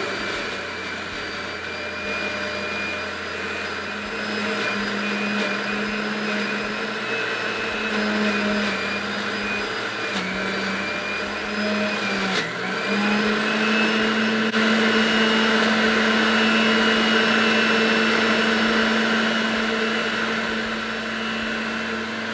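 Breville BJE510XL centrifugal juicer's motor running at its highest speed with a steady hum, its pitch sagging briefly a few times midway as produce is pushed down the chute and loads the spinning blade.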